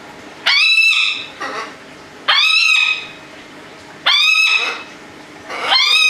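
A pet parrot calling loudly four times, about every two seconds: each call is a clear pitched squawk that rises sharply and is held for about half a second.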